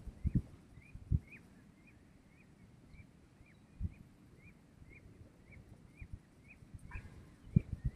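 A bird calling one short rising-and-falling note over and over, about twice a second. Low rumbling thumps come just after the start and again near the end, with a brief rattly click shortly before the end.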